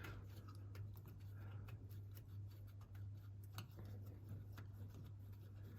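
Faint, scattered clicks about a second apart as a ratchet and extension work a tight bolt out of a Holden Commodore differential cover, over a steady low hum.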